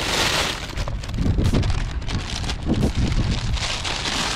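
Thin plastic bag crinkling and rustling as a hand pulls it out of an insulated cooler bag, with a low wind rumble on the microphone.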